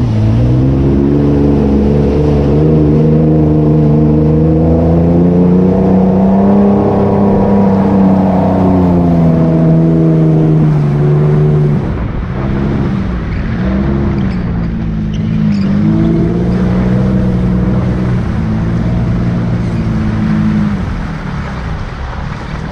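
Toyota FJ Cruiser's 4.0-litre V6 pulling through mud on the throttle. The engine note climbs over the first several seconds and holds, then drops suddenly about halfway as the throttle eases, and runs on lower and uneven. Muddy water splashes against the body at the start.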